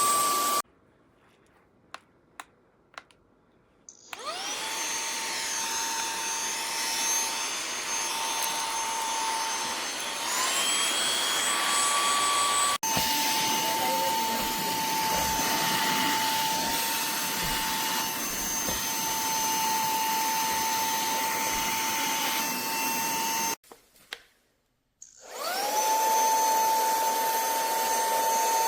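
Cordless handheld vacuum motor running with a high whine. It switches off with a few clicks, then spins up again with a rising whine that settles into a steady pitch. Partway through the pitch steps up, as on a higher power setting, then drops back. Near the end it stops briefly and spins up again.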